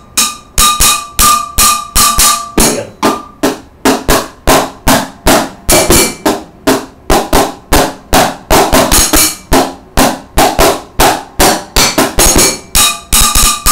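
Wooden drumsticks beating a steady rhythm on a metal cooking pot and a cardboard shoebox, about three strikes a second. The hits ring with a metallic tone for the first couple of seconds and again near the end, and are duller in between.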